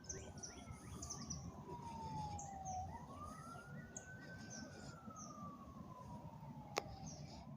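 Faint emergency-vehicle siren sounding a slow wail: its single tone falls, rises and falls again over several seconds, then starts to rise once more near the end. Underneath is a low rumble, with a single sharp click about seven seconds in.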